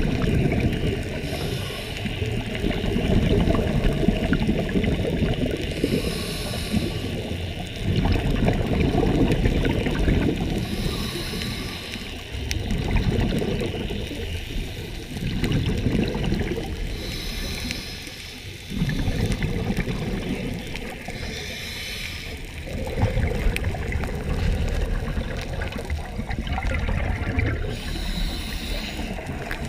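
Scuba diver breathing through a regulator underwater: a short hiss with each inhalation, then a longer bubbling rumble of exhaled air, about six breaths roughly five seconds apart.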